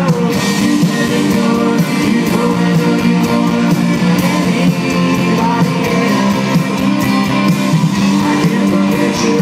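Live rock band playing loudly: electric guitars, bass and drums, with a voice singing.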